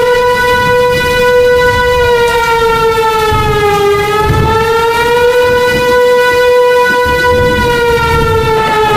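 Warning siren sounding one long, steady tone that sags slightly in pitch about four seconds in, over a low rumbling noise.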